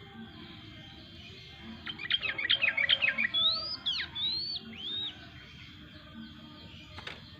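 Yellow-vented bulbul (trucukan) singing. About two seconds in comes a quick run of sharp chirps, followed by three arched whistled notes that rise and then fall.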